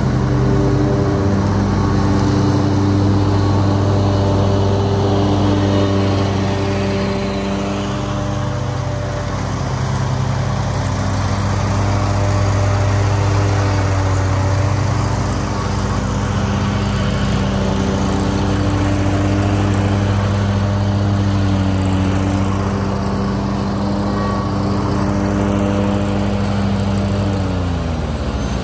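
Lawn mower engine running steadily under load, its pitch sliding down near the end as it throttles back.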